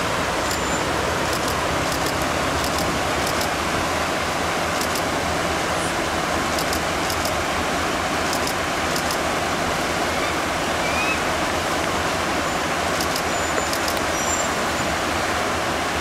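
Fast-flowing river rushing steadily over rapids, with faint short ticks now and then.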